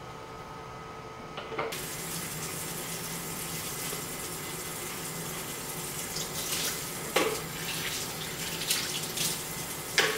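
Kitchen faucet running into a sink as dishes are rinsed under it, the water coming on about two seconds in. Two sharp knocks, the later one near the end, stand out over the steady hiss.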